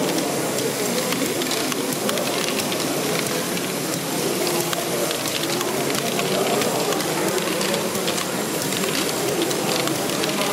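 Steady hall ambience: many overlapping crowd voices with a dense, continuous clicking and clattering of Lego ball-moving machines running.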